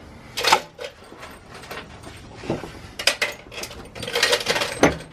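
Steel sleeve of a rubber control-arm bushing crumpling and crunching as it is squeezed in a bench vise. It gives a series of sharp, irregular metallic cracks, loudest about half a second in and near the end.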